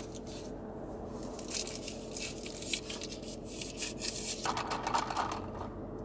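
A straw wrapper crinkling and tearing as it is pulled off a straw, then a short squeaky rub about four and a half seconds in as the straw is pushed through a plastic cup lid, over a steady low car-cabin hum.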